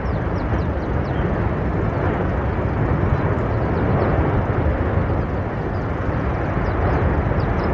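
Erupting Cumbre Vieja volcano: a loud, steady, low rumble with no breaks, with faint short high chirps scattered over it.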